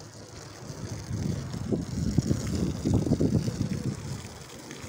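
Wind buffeting the microphone: a low, irregular rumble that gusts louder for a few seconds in the middle.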